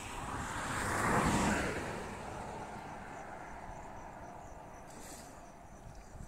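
A vehicle passing by: a broad rumble that swells to a peak about a second in and fades away over the next two seconds, over faint insect buzzing.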